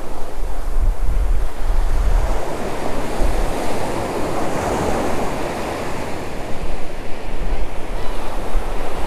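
Ocean surf breaking and washing up the beach, with wind buffeting the microphone as a low rumble over the first couple of seconds. The wash swells to its loudest around the middle.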